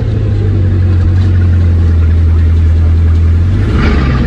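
Bugatti Chiron's quad-turbo W16 engine idling with a strong, steady low hum. Voices come in near the end.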